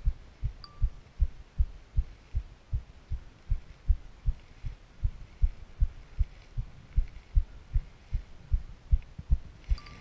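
Walking footsteps carried through a handheld camera as a steady beat of low thuds, about two and a half a second.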